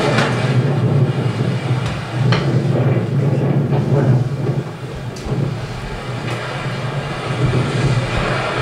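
Soundtrack of an onboard sailing video played over loudspeakers in a room: steady wind buffeting the camera's microphone and water rushing past the hull of a sailboat in rough seas, with a few light clicks.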